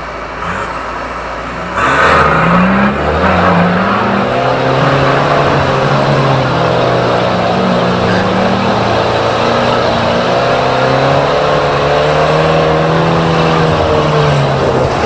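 Off-road 4x4's engine revving hard under load, its pitch rising and falling as the throttle is worked; it gets much louder about two seconds in.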